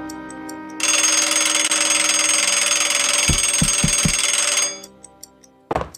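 Cartoon score, then a loud bell ringing for about four seconds like an alarm clock going off, stopping abruptly, with four dull thuds under it near the end.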